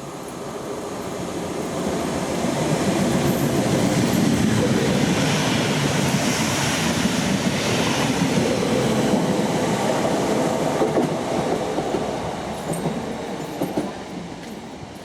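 A train going by on the tracks: its noise builds over the first few seconds, stays loud for several seconds, and dies away near the end.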